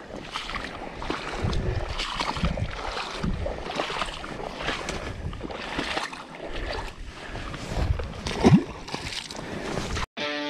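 Close handling and rustling noise on a body-worn camera, with water sloshing and splashing as a large fish is lowered back into the shallows. A short rising sweep comes about eight and a half seconds in, and near the end the sound cuts off and a guitar music track starts.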